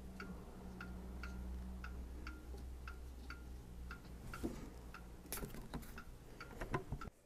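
Wall clock ticking steadily, about two ticks a second, over a faint low room hum, with a few faint handling noises near the end.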